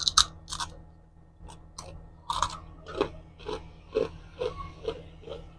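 Crispy chicken skin being bitten and chewed close to the microphone: several sharp crunches in the first couple of seconds, then steady chewing about twice a second.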